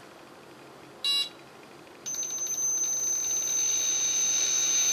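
A short electronic beep, then the SkyRC 1/4 scale motorbike's gyro motor starts up on bench power about two seconds in: a steady high-pitched whine that slowly grows louder as it gains speed. It keeps climbing because the control board is not controlling the motor.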